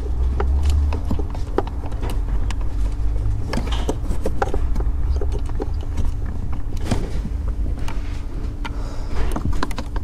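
Scattered light clicks and taps of a socket being turned by hand on the brake light switch's mounting bolt, over a steady low hum.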